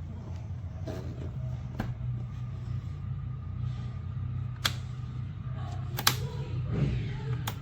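Thermoelectric mini fridge running with a steady low hum, with four sharp clicks spread through.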